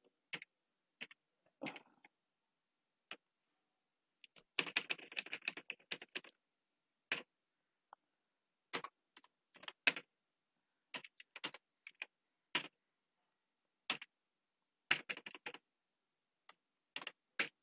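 Computer keyboard being typed on in separate, irregular keystrokes, with a quick run of keystrokes about five seconds in and another short flurry near the end.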